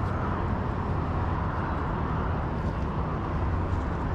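Steady wind noise on the microphone, a low rumble with a hiss over it, while a magnet-fishing rope is hauled in hand over hand.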